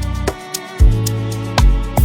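Background music with a steady beat: deep sustained bass notes under held instrument tones, with regular drum hits.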